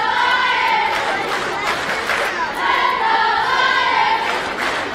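A group of young voices chanting a cheer in unison, in two drawn-out phrases: one at the start and another about three seconds in.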